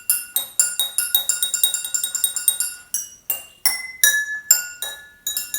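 Drinking glasses of different sizes tapped with barbecue skewers, each glass ringing at its own pitch. The first half is a quick, even run of light clinking strikes; the second half has slower strikes that move between higher and lower glasses.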